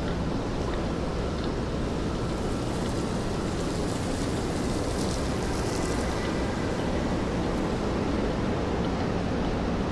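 Steady rainfall and city traffic noise on wet streets, an even hiss, with a swell of brighter hiss about halfway through.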